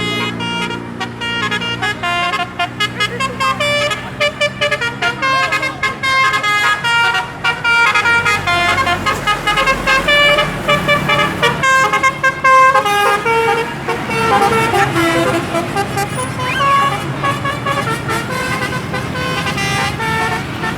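Bus telolet horn (a basuri multi-trumpet air horn) playing a fast tune of short notes that jump in pitch, over the low running of the bus engine; the notes come thickest in the first half and grow sparser and longer later.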